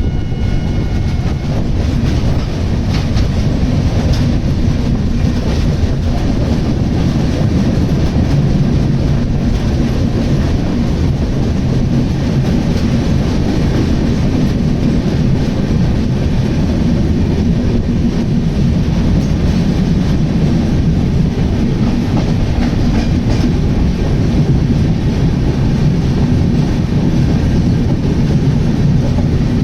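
Passenger train running through at speed: a steady, loud rumble of wheels on rail with clickety-clack over the rail joints.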